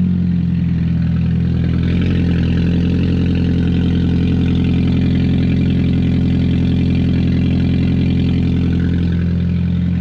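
Toyota Prius hybrid's petrol engine idling steadily while the car is parked. Its note grows fuller about two seconds in.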